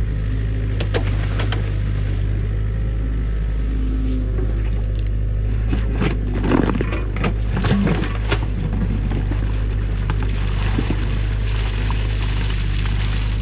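Compact excavator's diesel engine running steadily under load while it digs out a beaver dam, with scrapes, knocks and cracks from the bucket tearing into mud and sticks in the water in the middle of the stretch.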